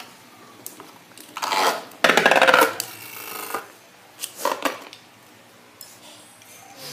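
Plastic ripcord launcher rasping as its toothed cord is pulled to launch a toy spinning top, about one and a half seconds in. The top then spins and rattles on the cardboard floor of a box, with another short clatter about four and a half seconds in.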